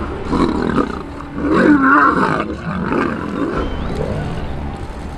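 Male lions fighting, growling and snarling at each other in a rough, uneven series, loudest about a second and a half to two and a half seconds in.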